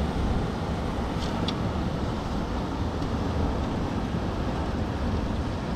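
Steady rush of wind buffeting the microphone over sea surf washing among shoreline boulders, with a low rumble underneath.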